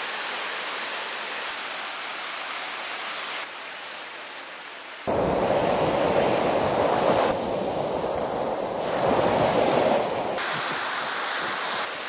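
Sea surf breaking on a sandy beach and rocky shore, a steady rush of big waves on a rough sea. The level jumps up and down at several sudden cuts and is loudest from about five seconds in.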